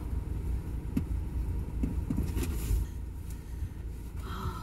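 Steady low rumble inside a parked car's cabin, with a few light clicks and knocks about one and two seconds in and a brief squeak near the end.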